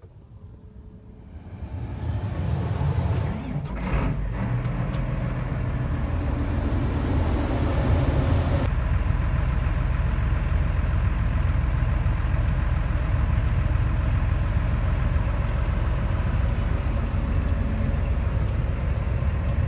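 Large farm machine's diesel engine running steadily, a deep rumble that builds up from quiet over the first two seconds, with a brief sharp noise about four seconds in.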